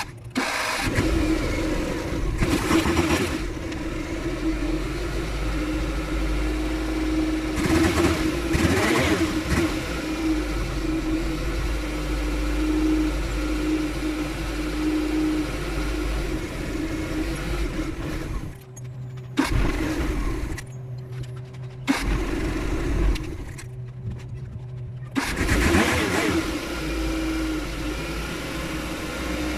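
Suzuki F6 three-cylinder carburetted engine running, revved up briefly several times, with a few sudden cut-outs near the end. The engine has a carburettor problem that makes it hard to start and run rough, with sludge and water found in the fuel.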